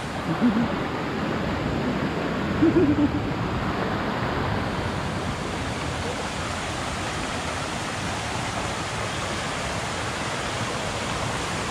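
Steady rush of flowing water, like a waterfall or rapids. Two short voice sounds come in the first three seconds.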